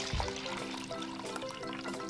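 Background music, with water trickling as it is poured into clear plastic cups of Orbeez water beads.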